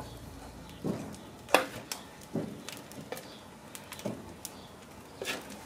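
Ears of sweet corn being set down one after another on metal barbecue grill grates, giving about half a dozen light knocks, the loudest about a second and a half in.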